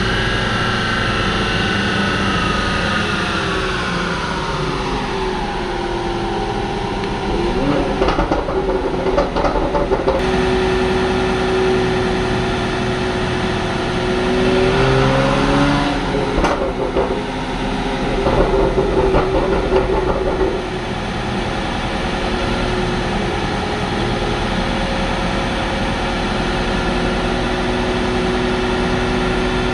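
BMW N54 twin-turbo inline-six in an E92 335i on a chassis dyno, its note falling steadily as it runs down from about 5,000 rpm. After rougher, louder stretches it settles into a steady run at about 2,000 rpm in fourth gear.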